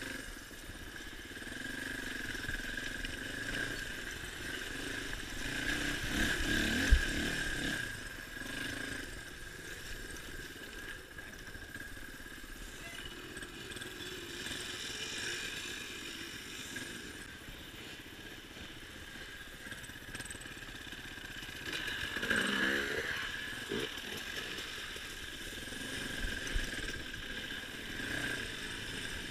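Suzuki DR350 dirt bike's single-cylinder four-stroke engine running over rough trail. It revs up about 22 seconds in, and there is a sharp knock about 7 seconds in.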